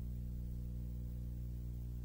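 A steady low hum made of several even tones, unchanging throughout, with faint hiss above it.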